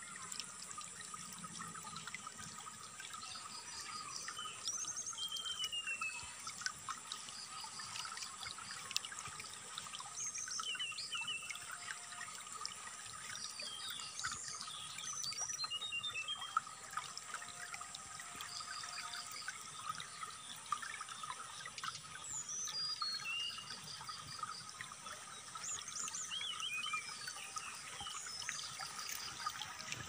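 Trickling, flowing water with a brown-chested jungle flycatcher singing over it: short runs of high, quick notes and descending phrases, repeating every few seconds.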